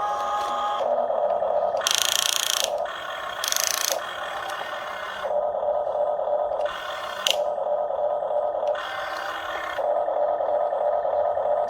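Electric motors of a Huina RC excavator with a grapple working in short bursts of one to two seconds as the arm and grapple move. A steady mid-pitched whine alternates with a harsher, hissier motor sound.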